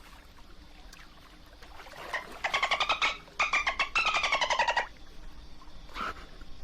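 Dolphin calls: two rapid buzzing trains of clicks, about a dozen pulses a second, the first lasting under a second and the second over a second and falling slightly in pitch, followed by a short whistle near the end.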